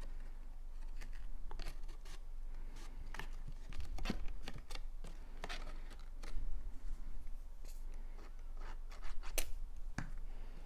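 Cardstock being handled, folded and pressed together as tabs are glued: irregular small clicks, taps and paper rustles.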